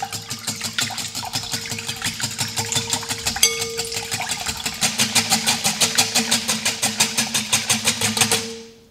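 Electric mixer running, a steady motor hum with a fast, rhythmic clatter that settles into about five beats a second in the second half, switched off near the end.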